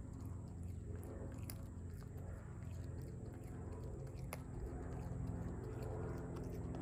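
Common brushtail possum chewing and biting a piece of frozen banana, with a few sharp clicks from its bites, over a steady low hum.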